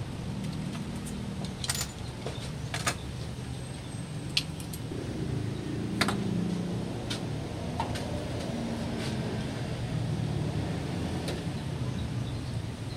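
Steady low mechanical hum with about five sharp metallic clinks spread through it, the loudest about halfway.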